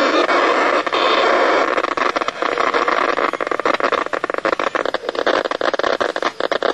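Receiver noise from an Icom HF ham transceiver tuned in the 40-metre band: a loud, steady rushing hiss that about two seconds in breaks up into a rapid crackling stream of pulses. It is the kind of interference that ham operators blame on broadband over power lines.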